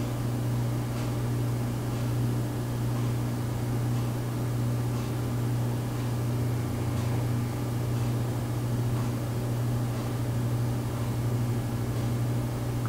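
Steady low mechanical hum, a strong low drone with a fainter higher drone above it and a haze of hiss, with faint ticks recurring about every two seconds.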